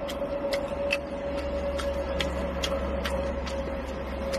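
Even, sharp ticking at about two ticks a second over a low steady hum and a faint steady tone, inside a car.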